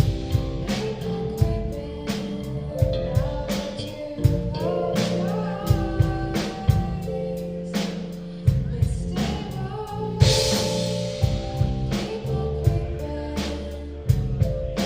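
A live rock band playing a song: drum kit keeping a steady beat under electric guitar and bass, with a singer's voice, and a cymbal crash about ten seconds in.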